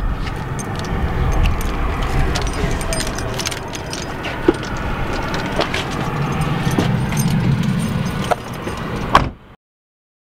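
Keys jangling and small clicks and knocks as someone gets into a car, over a low vehicle rumble. A car door shuts with a sharp knock near the end.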